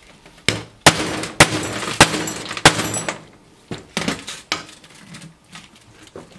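Ball-peen hammer striking a steel socket used as a driver, about five sharp metallic blows with ringing metal between them, tapping a seal home into a power steering cylinder gland. A few lighter clinks follow as tools are set down on the metal bench.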